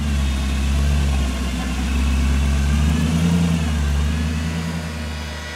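A large engine idling with a deep, steady rumble, fading somewhat near the end.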